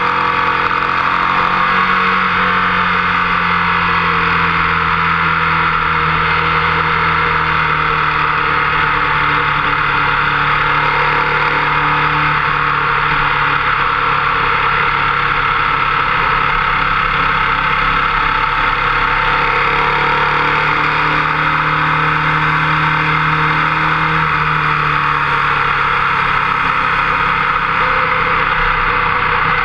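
Motorcycle engine running at track speed under dense rushing wind noise, its note rising and falling slightly through the corners.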